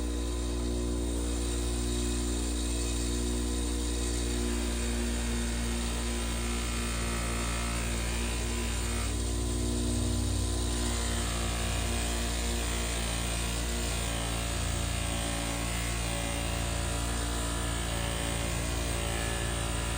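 Old bench grinder running steadily with a buffing wheel, a steel knife blade held against the wheel to polish it, the contact noise shifting as the blade is moved.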